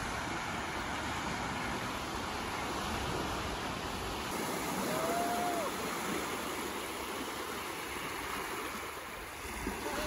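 Small sea waves breaking and washing up the sand in a steady hiss of surf. A short high call sounds briefly about halfway through.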